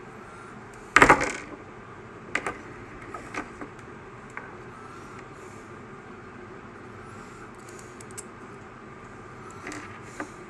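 Small hard parts and tools handled during an RC truck repair: one loud clatter about a second in, then a few lighter clicks and taps, over a steady background hum.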